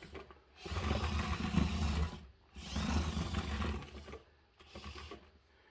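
Small 300 RPM electric gear motors of an RC-converted Bruder CAT padfoot soil compactor, driving its drum and rear wheels across a wooden tabletop. They run in two bursts of about a second and a half each, then briefly once more near the end.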